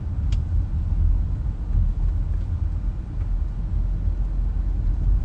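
Steady low rumble of a car on the move, heard inside the cabin: road and engine noise.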